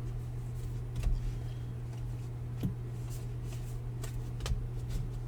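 Baseball trading cards being handled and flipped through, with a few faint clicks and slides of card on card, over a steady low hum.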